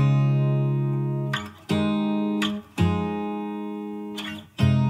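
Background music: acoustic guitar strumming four held chords, each ringing out for a second or so before the next.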